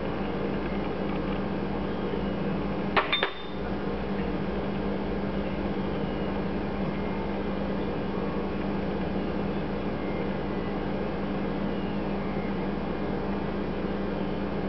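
Steady drone of a running electric fan, with a constant low hum. About three seconds in, a quick cluster of two or three sharp clicks cuts through it.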